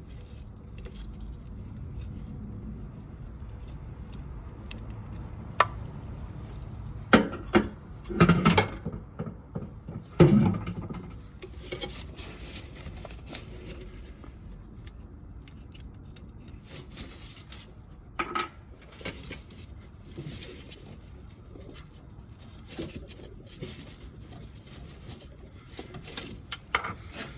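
Metal tools and parts clinking, knocking and scraping during work on a car's power steering box, with a cluster of loud knocks about seven to ten seconds in and several short scrapes later.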